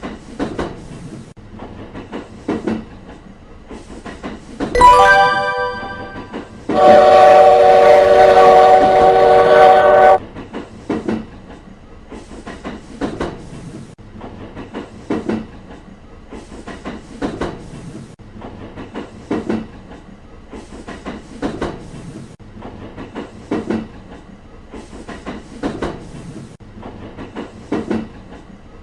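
Train running over rail joints: a steady, rhythmic clickety-clack, with a stronger clack about every two seconds. About five seconds in the train sounds a short horn blast. Then comes a loud horn held for about three seconds, several notes at once.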